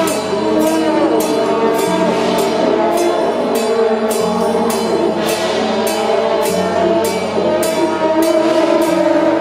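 Temple procession band music: wind instruments play held notes that shift in pitch over a steady low drone, with a sharp drum or cymbal stroke about twice a second.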